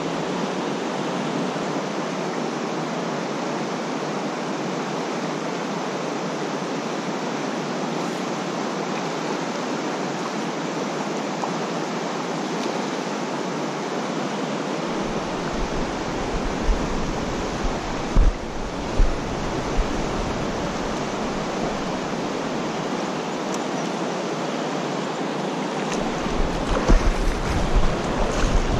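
Steady rush of a fast-flowing, riffled creek. From about halfway through, wind buffets the microphone with low rumbling gusts, strongest near the end.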